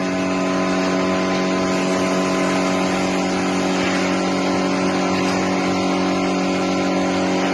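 Electric motor of a glass-cutting machine running at a steady speed, giving a constant, even hum with a noisy hiss over it.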